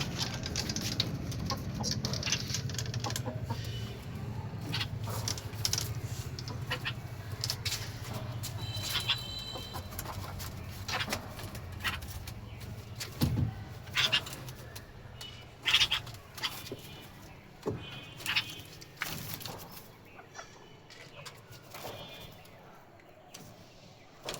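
Chickens clucking, with short chirps from small birds, in brief calls scattered throughout; a low steady hum underlies the first half and fades away.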